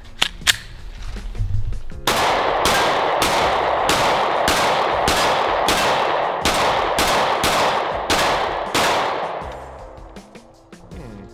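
A 9mm micro-compact pistol fired in a steady string of about fourteen shots, roughly two a second, emptying a magazine at the target; each shot rings on with echo. A couple of small clicks come just before the string.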